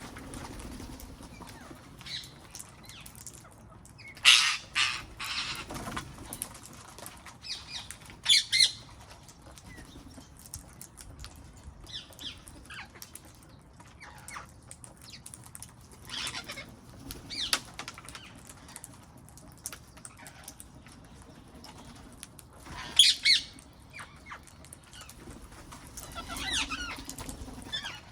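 Wild parrots: a scatter of short, loud, harsh bursts, the strongest a cluster about four to six seconds in and single ones about eight and twenty-three seconds in, with a soft, low cooing of a pigeon or dove now and then.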